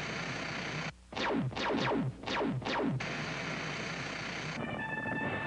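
Electronic sound effects for a TV transition: a steady hiss, a brief cut-out, then five quick synthesized sweeps falling from high to low pitch, then hiss again. Music begins near the end.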